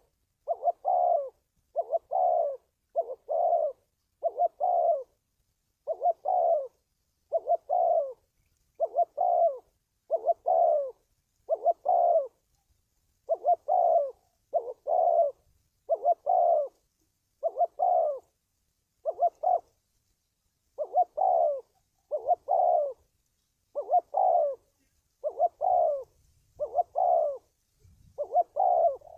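Spotted dove cooing: a long series of short coo notes, roughly one to two a second, with a few brief pauses between runs.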